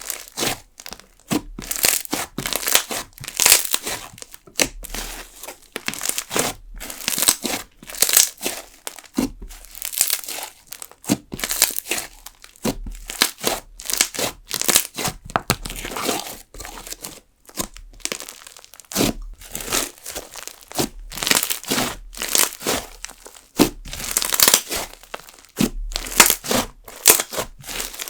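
Jelly slime with sugar beads mixed in, worked and stretched by hand, crackling with bursts of air-bubble pops every second or so.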